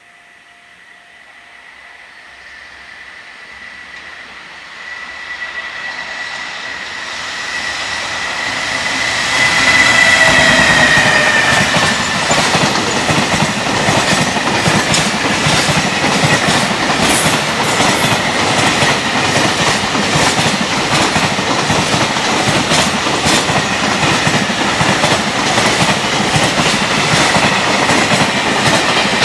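Electric freight train approaching at speed: a high whine grows louder and dips in pitch as the locomotive passes about ten seconds in. It is followed by a steady loud rush of freight wagons, with rapid clickety-clack of wheels over the rail joints.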